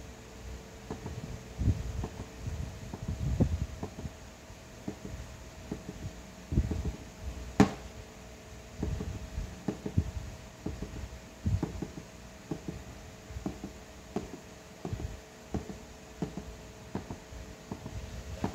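Wooden drumstick tapping the rubber pads of a Roland Octapad SPD-30 electronic percussion pad: a string of dull thumps at uneven intervals, with one sharper click about seven and a half seconds in, over a faint steady hum. The pads are being tested for a snare pad fault where the pad only sounds when struck hard.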